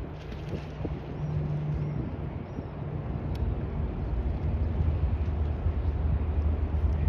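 Wind buffeting the microphone aboard a sailing boat under way, a steady low rumble over a hiss of moving air and water.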